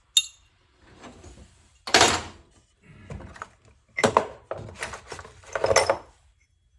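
Small steel tool parts being handled: a sharp click near the start, then several separate knocks and scrapes as pieces are picked out of a wooden toolbox and set down.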